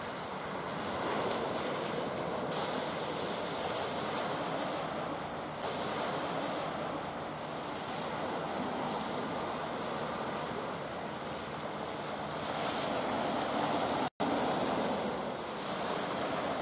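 Wind and sea waves, with wind buffeting the microphone, as a steady rushing noise that swells and eases. It cuts out for an instant about fourteen seconds in.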